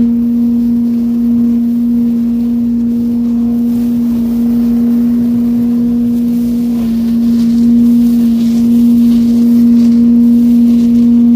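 Billy Goat walk-behind leaf vacuum running at a steady speed with a loud, even hum. The hum does not change while the machine moves over dry leaves.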